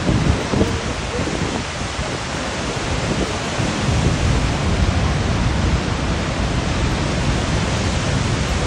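Steady, heavy rush of a huge waterfall, Niagara's Horseshoe Falls, heard close to its brink: a constant, deep roar of falling water with no pauses.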